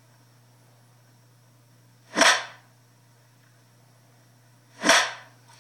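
A rattan cane striking bare skin twice in a caning, the strokes sharp and brief and about two and a half seconds apart.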